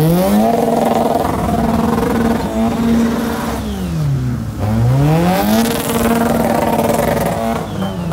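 Small hatchback's engine revved hard and held at a steady high pitch during a burnout. It falls away about four seconds in, climbs straight back, and dips briefly again near the end.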